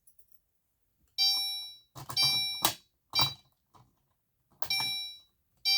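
Gentex Commander 3 horn strobe sounding its electronic chime tone, set to code-3 chime. It gives about five separate chime strokes of the same pitch, each ringing and fading in under a second, with a few sharp clicks among them.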